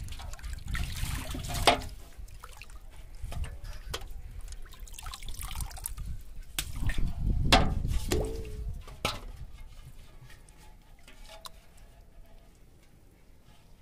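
Water splashing and dripping around a large aluminium basin as a caught catfish is handled in it, with a few sharp knocks against the basin. It grows quieter near the end.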